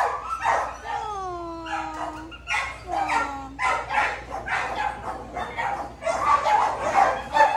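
Several shelter dogs barking from their kennels. Two long falling cries come in the first half, and the barking grows denser near the end.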